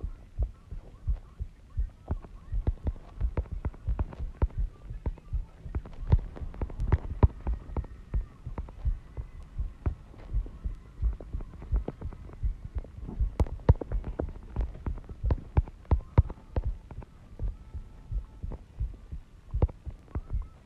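Fingertips tapping on a phone's touchscreen while typing on the on-screen keyboard, picked up by the phone's own microphone as rapid, irregular soft thumps, several a second, with a faint hum underneath.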